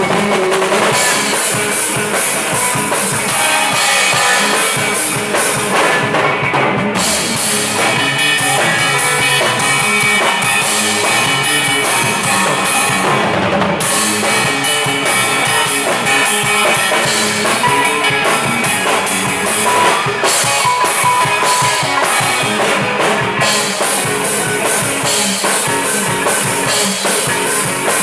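A rock band playing an instrumental stretch: drum kit with bass drum and cymbals driving steadily under electric guitars.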